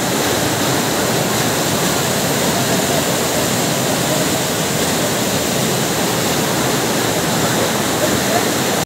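Floodwater rushing down the stone steps of a hillside footpath, a loud steady rush like a waterfall.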